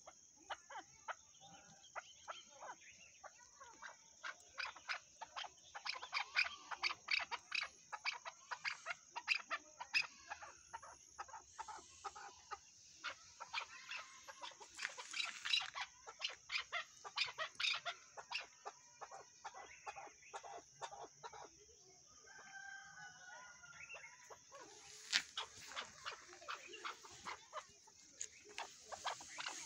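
Chukar partridge calling: long runs of short, sharp chuck notes, several a second, in bursts with brief pauses. There is a different call with held notes about two-thirds of the way through.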